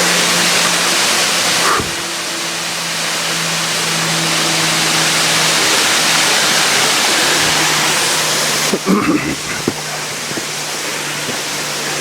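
Steady rushing of a nearby mountain waterfall cascade, with a few brief knocks about nine seconds in.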